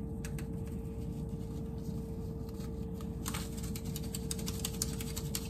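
Light clicks and rattles from handling spice containers, a few near the start and a denser run about three to four and a half seconds in, over a steady low hum.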